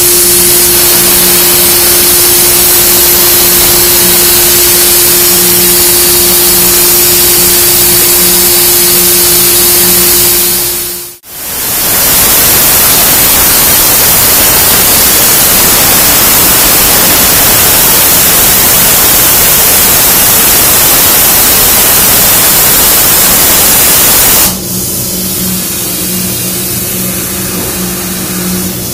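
CNC plasma torch cutting 5/8-inch steel plate: a loud, steady hiss of the arc that breaks off briefly about eleven seconds in, resumes, and stops about four seconds before the end, leaving a quieter steady hum.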